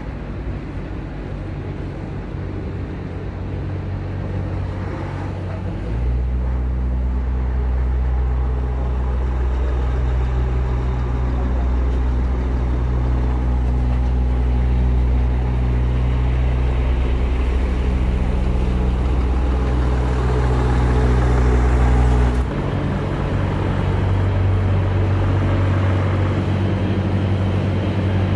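DAF semi-truck's diesel engine running steadily at low revs while it manoeuvres slowly, growing louder from about six seconds in as it comes close. The engine sound changes abruptly about 22 seconds in.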